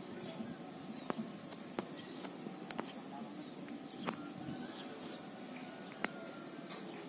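Faint outdoor ambience: a few birds chirping high and briefly over a low steady murmur, with about five sharp clicks at irregular intervals.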